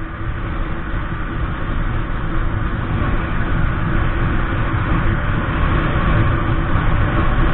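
Motorcycle riding at highway speed: a steady engine and wind roar that grows gradually louder as it picks up speed.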